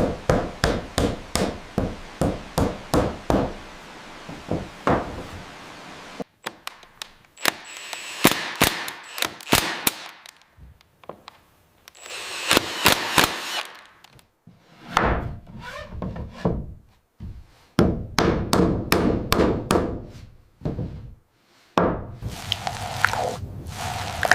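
Hand tools working wood. It opens with a steady run of sharp wooden knocks, about three a second, then after a cut come irregular bursts of scraping and rubbing on wood.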